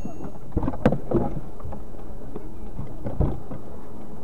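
Steady low rumble of a stopped car's cabin, picked up by a dashcam microphone. Several dull knocks come about half a second to a second in, and one more just after three seconds.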